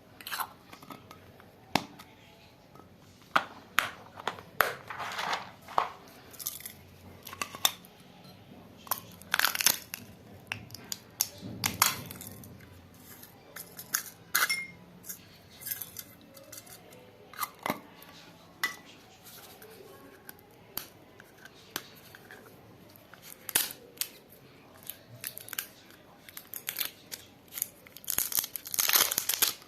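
Plastic packaging being handled and torn open: scattered crinkles, rustles and sharp clicks, turning into continuous crinkling near the end.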